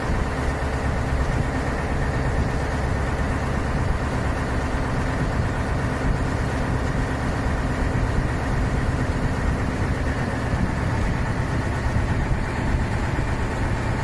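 Engine of a river passenger boat running steadily under way, a constant low drone with no change in speed.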